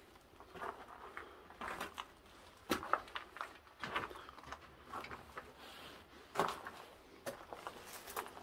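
Footsteps with scattered light knocks and scuffs, irregular and quiet, about one every half second to a second.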